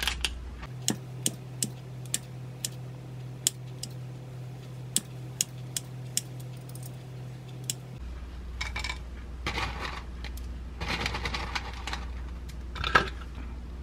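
Kitchen scissors snipping a sticky mugwort brown-rice mochi into pieces, a sharp click about twice a second. After that comes rustling and light clattering as a hand digs dried coconut chunks out of a plastic tub and scatters them.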